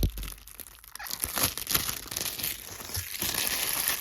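Plastic wrapping crinkling and tearing as a CD is unwrapped, a dense crackle that builds about a second in and runs on.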